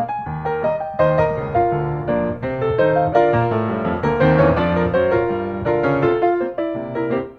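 Background music: a ragtime piano piece played at a brisk pace, with quick, evenly struck notes.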